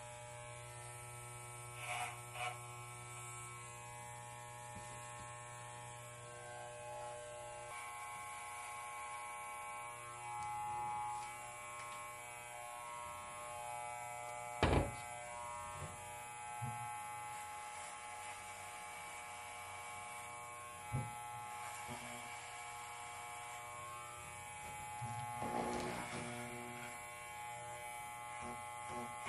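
Electric hair clippers buzzing steadily while cutting a wig's hair, with a sharp click about fifteen seconds in and a few smaller knocks.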